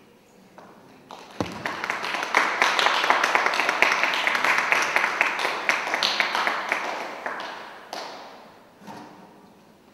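Small audience applauding: clapping starts suddenly about a second in, holds for several seconds, and dies away well before the end.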